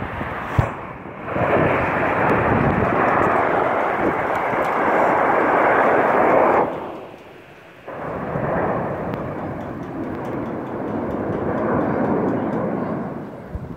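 Roar of a formation of air-show jets flying overhead trailing smoke: a loud, steady rushing rumble that drops away for about a second just past the middle, then returns.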